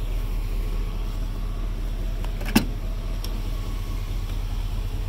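1990 Chevrolet C1500 pickup's engine idling steadily, a low even rumble. A single sharp click sounds about halfway through.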